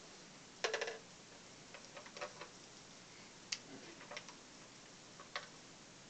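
Small clicks and light knocks of things being handled: a quick rattle of several clicks about half a second in, then scattered single clicks.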